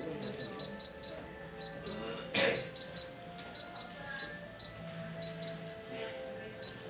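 Rongta label-printing scale's keypad beeping under key presses: short high beeps, one per press, in quick runs of several a second with short pauses between. A brief noisy burst about two and a half seconds in.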